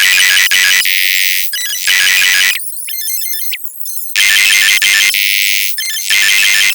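An electronic pop song sped up over a hundred times over, reduced to shrill, alarm-like beeping and chirping tones with almost no low end. The pattern repeats about every four seconds.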